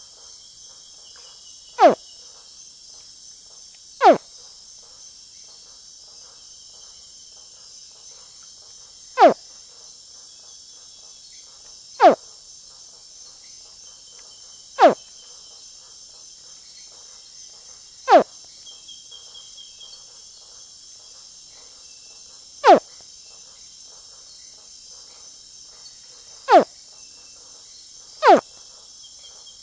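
Crocodile hatchling giving short, sharp chirps, each one falling steeply in pitch, about nine of them spaced two to five seconds apart. A steady high insect chorus runs underneath.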